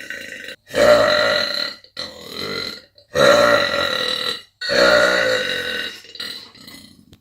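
A woman belching, about four long, loud burps in a row, each a second or more. Each burp is cut off abruptly by a sudden silence before the next, and the last one trails off near the end.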